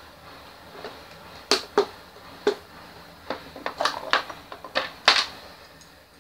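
Plastic snap-lock food storage container being opened: about ten sharp plastic clicks and clacks as its side latches are unclipped and the lid is lifted and set down.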